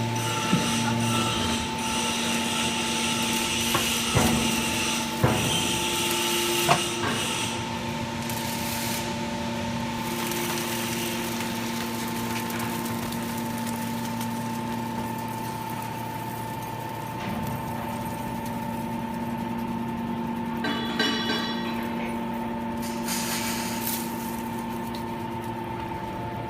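Automatic hydraulic scrap metal baler at work: its electric motors and hydraulic pump give a steady hum. Several sharp clanks of metal come in the first seven seconds.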